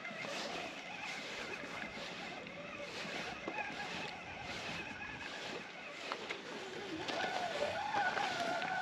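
Sea water washing and lapping against a rocky shore in irregular surges, with a faint wavering hum that grows louder near the end.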